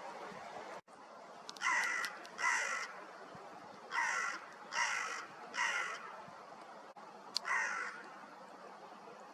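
Hooded crow cawing: six harsh caws, two together, then three in quick succession, then one more near the end.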